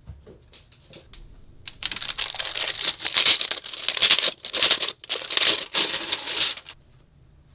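Plastic wrapping on a photobook crinkling loudly in several surges as it is handled and pulled off, after a few light taps of cards being handled.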